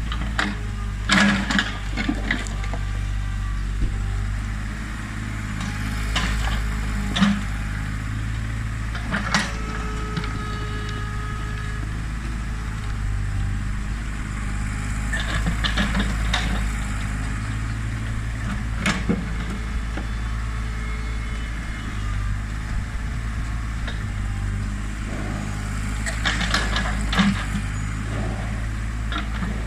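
An old backhoe's diesel engine runs steadily, with scattered metallic clanks and knocks as its bucket scrapes up soil and dumps it on a pile.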